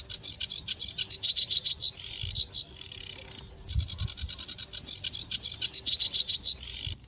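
Rapid, high-pitched chirping trills in two long bouts of about three seconds each, with a short pause between them and an abrupt stop near the end.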